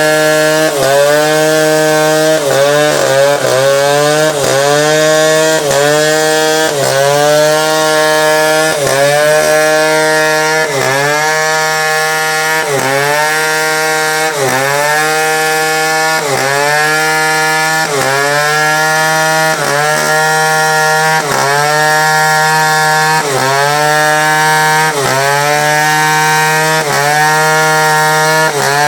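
Chainsaw running at high speed while cutting teak wood, its pitch dipping and recovering about once a second, a little faster near the start.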